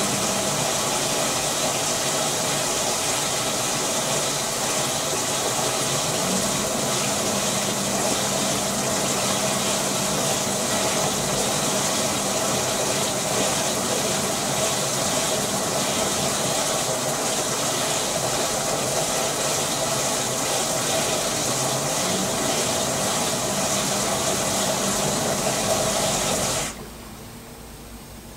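LG front-loading washer-dryer filling with water for the wash: a steady rush of water through the inlet into the drum, with a low hum that rises in pitch a few times as the drum turns. The water flow cuts off suddenly near the end as the fill stage finishes.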